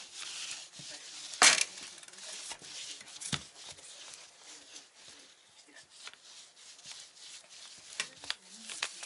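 Golden retriever puppy scuffling with a lint roller on carpet: rubbing and scrabbling noises with scattered light clicks, and two sharp knocks, the louder about a second and a half in and another at about three and a half seconds.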